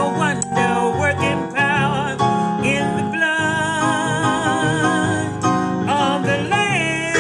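Country-style gospel music: guitar accompaniment under a wavering, sustained melody line.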